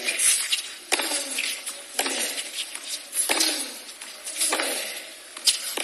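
Tennis rally on a hard court: the ball cracking off the rackets and bouncing, a sharp pop about once a second.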